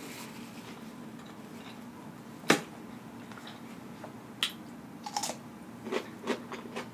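A crisp bite into a raw cucumber spear, with a sharp crunch about two and a half seconds in, followed by several softer crunches as it is chewed.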